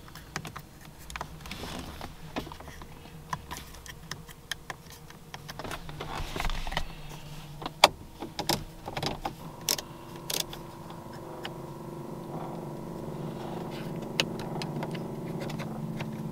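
Buttons and switches clicking in a 2004 Cadillac XLR's cabin, with a few sharp clicks near the middle. From about ten seconds in, an electric motor starts and hums steadily.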